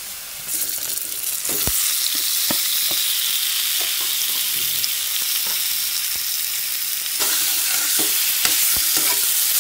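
Marinated chicken pieces going into hot oil and frying: a loud sizzling hiss that jumps up about half a second in and again near the end, with scattered sharp clicks as the pan is worked.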